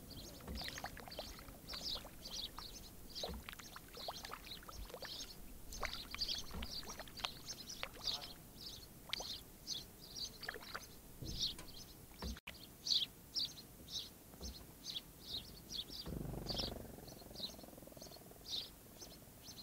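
Wild birds calling in a steady run of short, high chirps, several a second. Scattered small clicks and splashes of water come through the first half, and a brief low rush sounds near the end.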